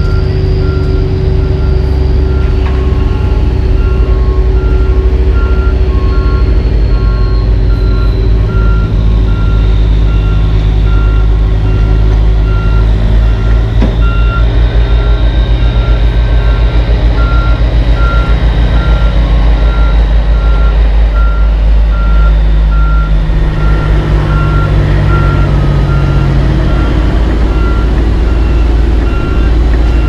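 Heavy diesel construction equipment running under a backup alarm that beeps steadily about once a second. A second, lower-pitched backup alarm joins for a few seconds early on. A rough, loud low rumble runs underneath.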